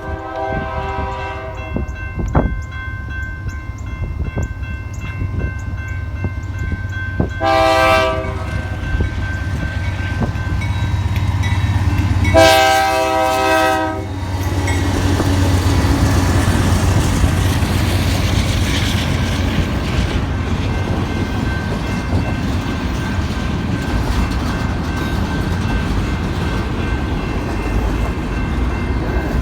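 BNSF GE C44-9W diesel locomotive sounding its horn in three blasts, the second one short, as the train approaches. Its engine and the intermodal stack cars rolling on the rails keep up a loud, steady low rumble after the horn stops.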